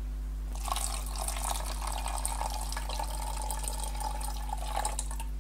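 Waste water poured from a small plastic palette water cup into the neck of a plastic bottle, trickling steadily. It starts about half a second in and stops shortly before the end.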